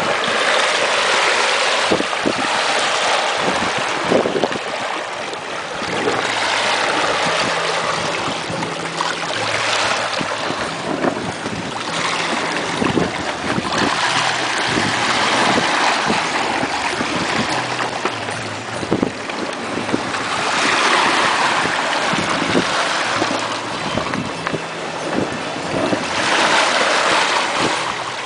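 Water rushing and splashing in the wake and along the hull of a boat under way at speed, swelling and easing every few seconds, with wind buffeting the microphone.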